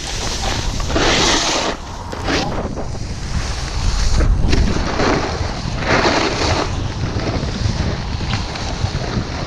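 Wind rushing over the microphone of a snowboarder riding downhill, mixed with the board scraping and hissing across the snow. The hiss swells in loud surges about one, four and six seconds in, as the board's edge bites into turns.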